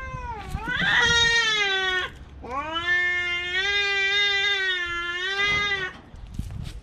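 Cat yowling in a territorial standoff: long, drawn-out, wavering wails, one breaking off about two seconds in and a longer one from about two and a half seconds to six seconds.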